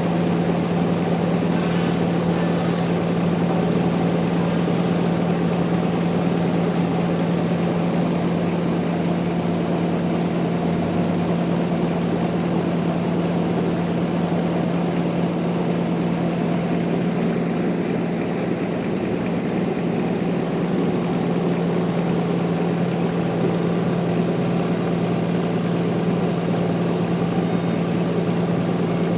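Sawmill machinery running steadily: a constant, unchanging hum with a rushing noise over it.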